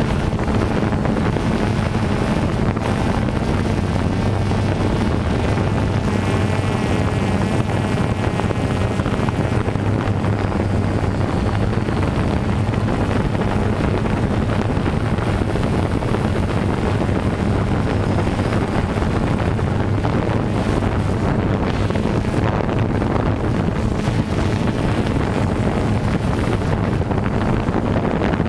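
DJI Phantom 2 quadcopter's motors and propellers running steadily, heard from the GoPro carried on the drone: a constant hum with a higher whine that wavers now and then, mixed with wind on the microphone.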